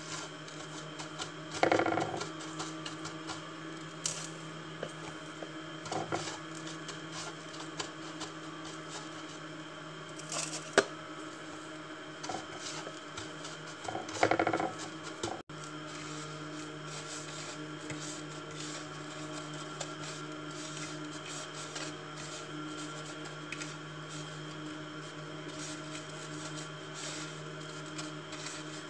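A steady mechanical hum from a kitchen appliance runs under soft handling knocks as dough pieces are moved onto a tray and rolled in breadcrumbs. A single sharp click comes about eleven seconds in.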